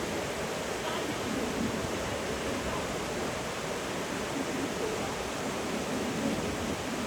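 Steady rushing outdoor noise, an even hiss with no distinct events in it.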